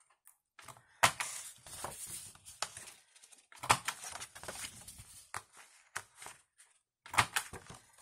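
Plastic envelope punch board's corner-rounder punch snapping through paper, three sharp clicks about three seconds apart, rounding the envelope's corners. Paper sliding and rustling between the clicks as each corner is repositioned.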